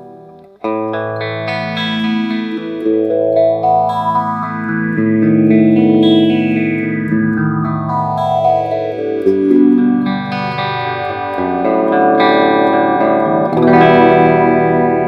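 Electric guitar played through an Electro-Harmonix Nano Small Stone phaser. A chord is struck about half a second in and held and re-struck, while the phaser's slow sweep moves up and down through the notes.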